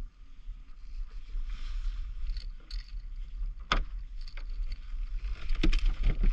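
Water lapping and sloshing against a plastic kayak hull over a low steady rumble, with sharp knocks of handling on the kayak about three and a half seconds in and again near the end.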